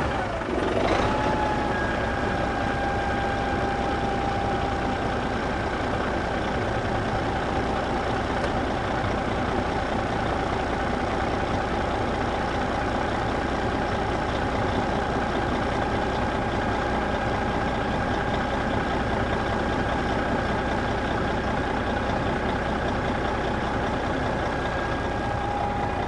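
A motor running steadily at one speed, a constant high whine over a low hum.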